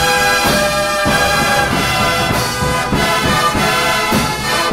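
Drum and bugle corps playing: the bugle line sounds full held chords, changing every second or so, over the drums.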